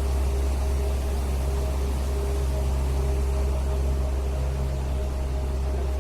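A steady, loud low mechanical drone with two constant tones riding above it and an even hiss, unchanging throughout.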